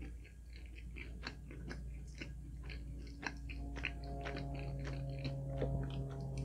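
Close-miked chewing: a person eating, with a quick, irregular run of wet mouth clicks and smacks. A soft, steady low tone comes in about halfway through.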